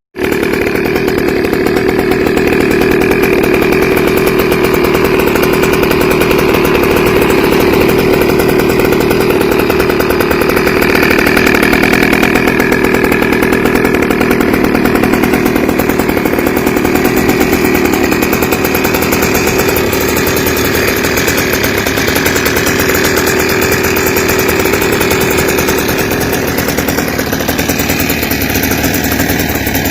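GoPed stand-up scooter's small two-stroke engine, fitted with an aftermarket exhaust pipe and silencer, running steadily at a fairly even speed.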